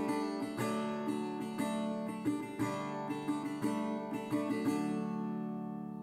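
Background music: acoustic guitar strummed in a steady rhythm, dying away near the end.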